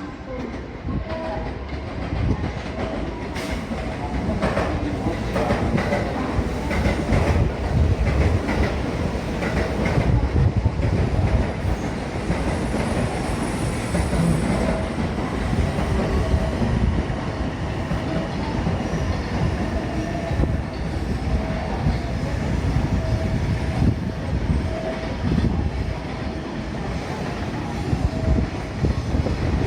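JR Kyoto Line electric train running along the station platform, its wheels clattering over rail joints with short squeals. The sound grows louder over the first few seconds, then holds steady.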